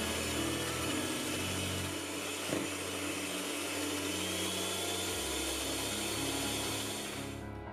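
Tefal electric hand mixer running steadily, its beaters whipping heavy cream in a glass bowl; it stops near the end.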